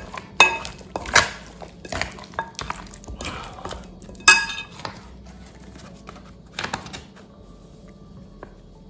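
Metal spoon clinking and scraping against a glass mixing bowl as flour-coated chicken wings are stirred and tossed. The clinks ring briefly; the loudest comes about four seconds in, and they stop about seven seconds in.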